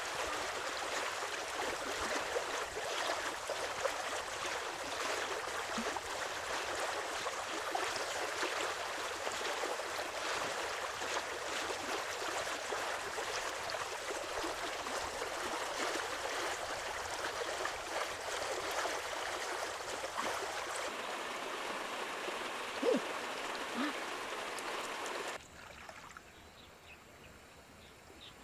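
Steady rush of flowing river water, with small splashes from a person wading and groping along the riverbed. Two short chirps sound near the end, and shortly after them the water noise drops off suddenly.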